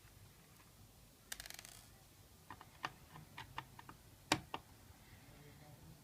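A quick, faint rattle of tiny clicks, then a scatter of light clicks and taps, the sharpest about four seconds in, from laptop parts being handled during a hard-drive swap.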